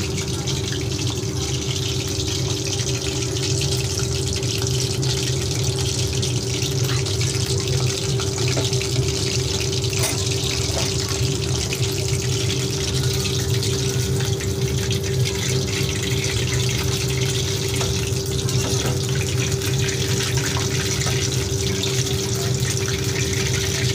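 Battered chicken pakoras deep-frying in hot oil in a kadai: a steady sizzle full of fine crackles, with a steady hum underneath. The chicken is partway through frying, browning and crisping.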